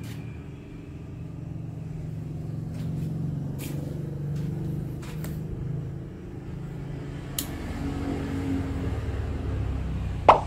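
Steel eccentric clamp set down on a rotary table with one sharp metallic clank near the end, after a few faint metal clicks as the clamp is handled. A steady low hum runs underneath.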